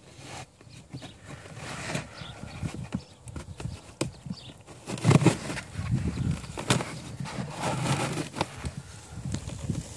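Pleated cabin air filter being pulled by hand out of its plastic housing: scraping and rustling against the housing walls with irregular clicks and knocks, louder from about five seconds in.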